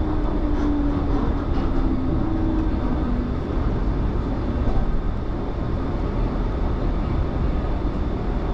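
Low-floor light-rail tram running on its rails, heard from inside the rear cab: a steady rumble of wheels and running gear. Over the first three seconds a whine falls in pitch.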